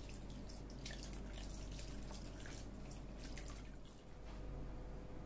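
Water poured from a bottle trickling and splashing onto crumbly chhena (fresh curdled-milk cheese) in a muslin cloth, rinsing out the vinegar's sourness. It dips briefly about four seconds in.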